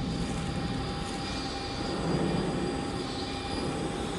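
Steady machine hum of a servo-driven CNC panel bender, with a constant faint whine held at one pitch.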